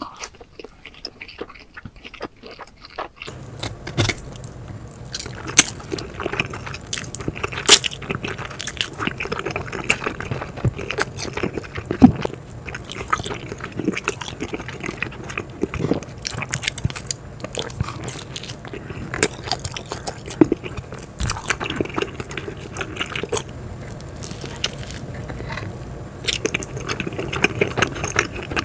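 Close-miked eating of cheese pizza: bites and chewing with wet, sticky mouth sounds and a few sharp crunches of crust. A steady low hum comes in underneath about three seconds in.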